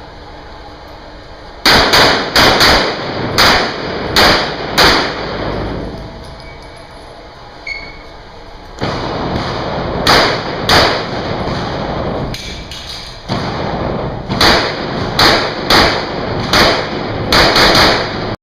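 Pistol shots fired in pairs and short strings, about a dozen and a half in all with pauses of a few seconds between groups. Each shot is a sharp, loud crack that rings on in the echo of a concrete-walled indoor range.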